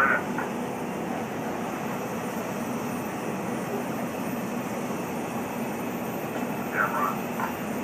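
Steady drone of ship machinery, even and unchanging, with a short higher-pitched sound right at the start and another about seven seconds in.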